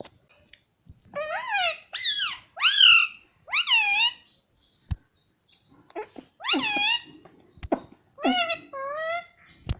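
Pet parrot calling: a run of about four short, rising-then-falling, whining calls, then after a pause about three more.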